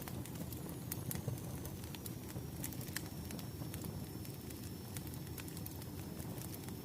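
Wood fire crackling, with irregular sharp pops and snaps over a steady low rumble of burning logs.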